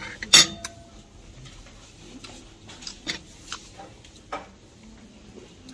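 Cutlery on a plate while eating: one sharp clink just after the start that rings briefly, then a few scattered soft clicks.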